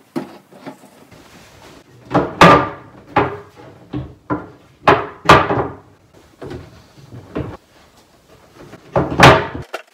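Solid wood butcher-block countertop being set down and shifted on a cabinet frame: a series of wooden knocks and thuds, loudest about two and a half, five and nine seconds in.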